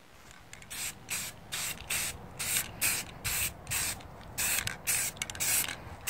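Aerosol spray-paint can hissing in a quick series of short bursts, about two a second.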